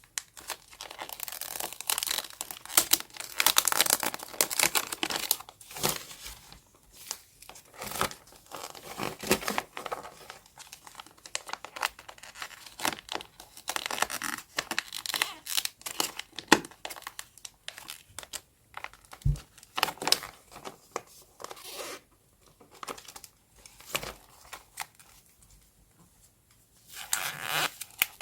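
Paper being handled for journal decorating: rustling, crinkling and tearing in irregular bursts with short pauses between.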